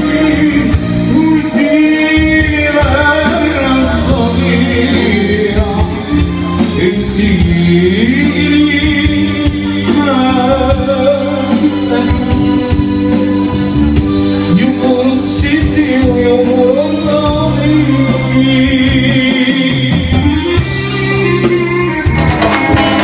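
Loud music with a singer's voice over a steady bass line.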